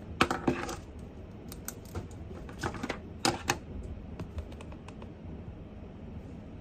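Typing on a computer keyboard in a few short runs of clicks, with scattered single key taps in between, over a steady low room noise.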